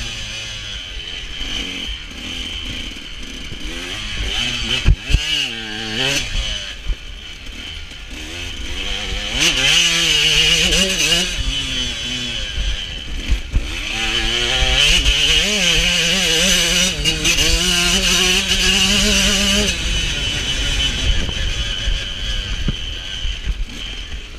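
Two-stroke KTM 125 SX motocross bike engine revving up and falling back again and again as it shifts gears, with wind rushing on the microphone. A few sharp knocks come about five seconds in. Later the engine is held high and steady for several seconds before backing off.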